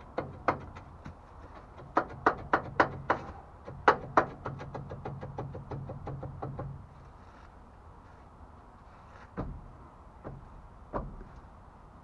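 Hammer blows on a Dayton spoke wheel and its clamp ring, beating the ring loose: about eight sharp metal strikes in the first four seconds, then a quick run of lighter ticks. Near the end come three duller thumps as the tire and rim are worked off the hub.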